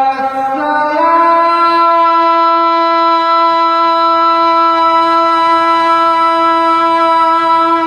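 A man's voice holding one long sung note, stepping up in pitch twice in the first second and then held steady for about seven seconds.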